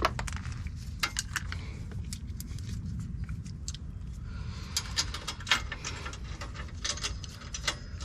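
Small metallic clicks and clinks in scattered clusters, metal hardware and tools knocking as a rear sway bar and its brackets are worked into place under a car.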